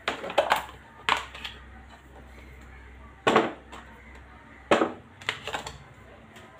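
Plastic food containers and a lid being handled and set down on a tray: a series of sharp knocks and clatters. A cluster comes at the start, then single loud knocks about halfway through and about two-thirds through, then a few lighter taps.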